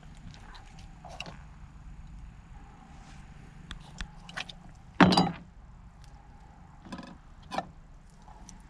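Knives and hands working a gray squirrel carcass on a pickup's ribbed plastic tailgate liner: scattered clicks and taps, with one loud thump about five seconds in. A faint steady low hum runs underneath.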